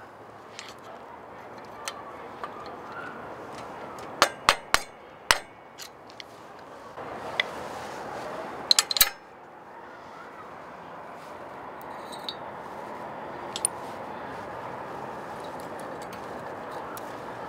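Sharp metallic clinks and taps of steel parts as the spring and climbing pin are worked out of a Hi-Lift jack's running gear: a quick run of four about four to five seconds in and a tight cluster of three about nine seconds in, a few fainter ticks later, over steady background noise.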